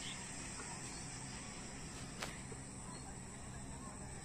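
Insects trilling steadily and high-pitched in the wetland, with one sharp click a little over two seconds in.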